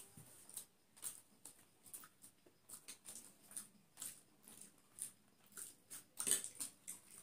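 Eating sounds of people having chicken biryani with their hands: soft, irregular chewing and lip-smacking clicks and fingers working rice on plates, with a louder mouth sound about six seconds in.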